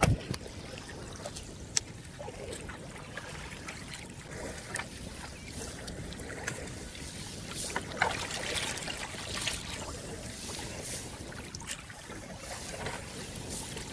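Water trickling and lapping around a small fishing boat, with scattered small knocks and splashes over a steady low background.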